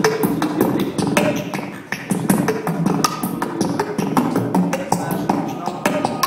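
Abstract electronic music: dense, rapid, irregular clicks and glitchy percussive sounds over a low, shifting pitched layer.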